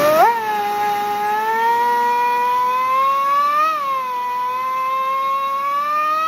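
Small motor running with a high, steady whine just after being switched on: it winds up fast, then holds its pitch and slowly creeps higher, with a brief wobble about halfway through.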